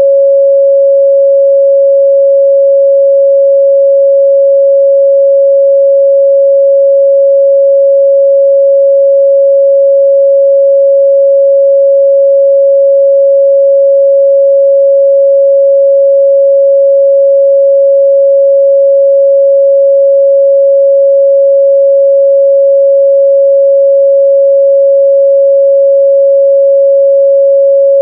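Steady, loud 553 Hz pure sine-wave test tone, one unchanging pitch with nothing else.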